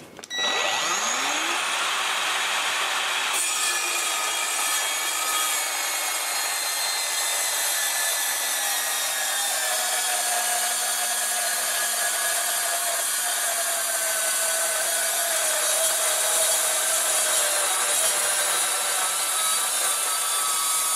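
Metabo MKS 18 LTX 58 cordless metal-cutting circular saw spinning up with a rising whine, then cutting into 12 mm steel plate from about three seconds in, a steady grinding cut whose pitch slowly sags as the motor labours. It is a half-depth first pass of a two-pass cut, taken to ease the load on the saw.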